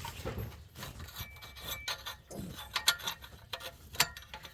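Metal clinks, taps and scraping as a reused exhaust clamp is worked into place on the exhaust pipe, with several sharp clicks, the loudest a little before the end.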